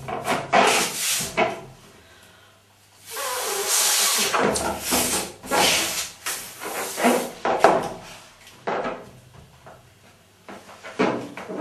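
Hands rubbing and squeaking on a large, partly inflated latex balloon held by its neck, in irregular strokes, with a longer stretch of hissing air about three seconds in.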